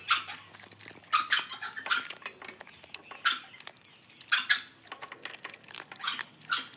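A dog chewing a raw chicken piece, with irregular crunching bites a few times a second.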